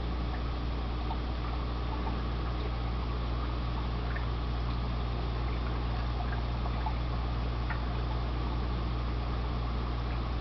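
Fish tank running: a steady low hum from its equipment with water bubbling and trickling, and a few faint pops of bubbles.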